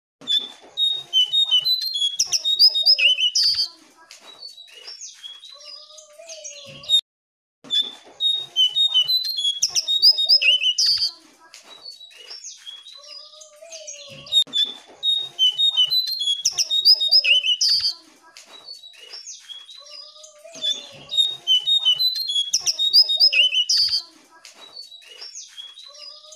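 Jongkangan (Horsfield's babbler) song: four loud bursts of rapid high chirps and trills, about every six and a half seconds, with quieter calls between them. The sound cuts out briefly about seven seconds in.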